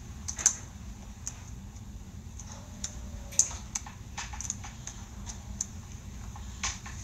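Irregular small plastic clicks and snaps as a Bakugan toy is handled and twisted in the hands.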